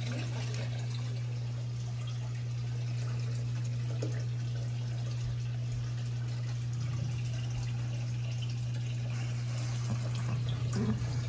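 Steady running, trickling water over a constant low hum.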